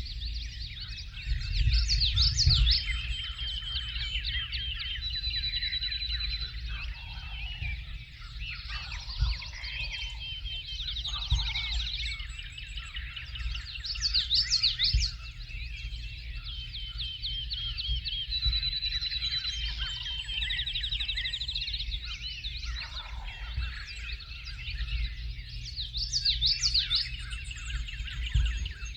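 Spring morning chorus of several songbirds singing over one another. A loud, rapid song phrase comes back about every twelve seconds, and a high trill twice, over a steady low rumble.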